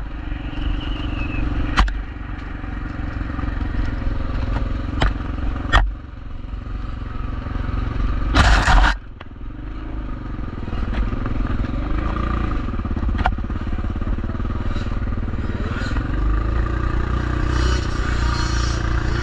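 A bike ridden over rough ground, a steady rumble with rattles and sharp knocks. Partway through there is a louder scraping rush, and later a tone that rises and falls a couple of times.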